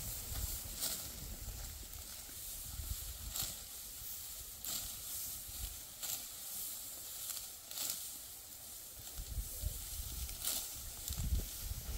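Dry wheat stalks rustling and crunching in short, sharp strokes every one to three seconds over a steady hiss, with low wind rumble on the microphone.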